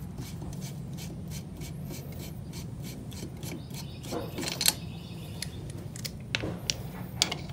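Lug nuts being unscrewed by hand with a spline-drive lug key socket: metal rubbing on metal, with a quick, even run of light clicks over the first few seconds and a few louder clacks later on. A low steady hum runs underneath.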